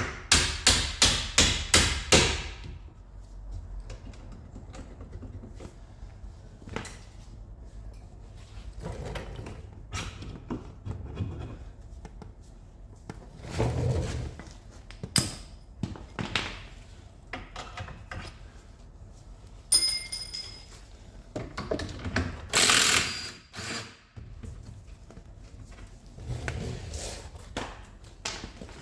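Hammer blows on steel car suspension parts: a quick, even run of about nine taps at roughly four a second at the start, then scattered knocks and the clatter of tools and metal parts being handled, with one ringing metal knock about twenty seconds in.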